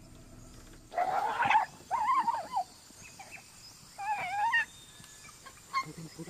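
A dog yelping in distress as a leopard seizes it: three high, wavering cries, each about half a second long.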